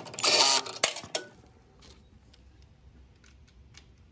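Cordless impact driver running in one short burst of about half a second, driving in a bolt on a lawn mower's air filter box, followed by a couple of sharp clicks.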